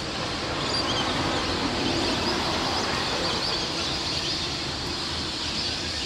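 A large flock of lesser whistling ducks calling together: a steady, dense chatter of many short, high whistles.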